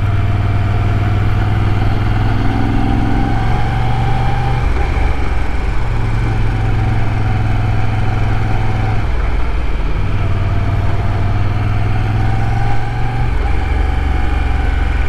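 Moto Guzzi V7 Stone's 853 cc air-cooled V-twin running steadily under a riding motorcycle. The engine note steps down and back up in pitch a few times.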